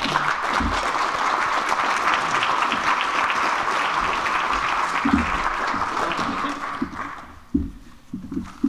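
Audience applauding in a lecture hall, a steady clapping that fades out about seven seconds in. A few low thumps come near the end.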